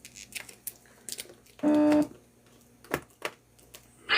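Light clicks and taps of hands working a laptop's screen cable connectors and panel. A short steady tone sounds once, a little under halfway through.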